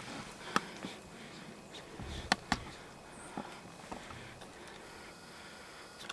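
Slow, careful footsteps in dry leaf litter, with a handful of sharp snaps and clicks scattered among soft rustles.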